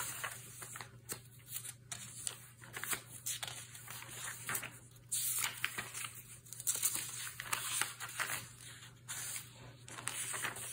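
Paper rustling as the pages of a thick Hobonichi Cousin memory planner are handled and turned: irregular soft scratches, flicks and crinkles.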